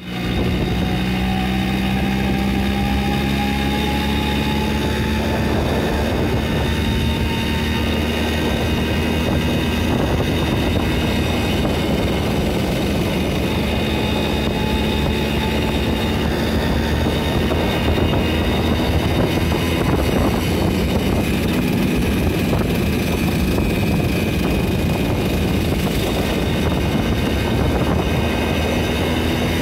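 Romet Ogar 205 moped's 50 cc two-stroke engine running steadily while riding, its note rising slowly over the first several seconds as it picks up speed and then holding, with steady wind and road noise.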